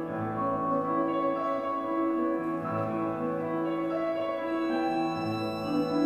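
Slow background music of long held chords that change about once a second.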